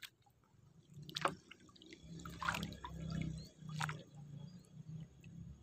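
Faint dripping and small splashes of water, a few separate drips standing out, over a low rumble.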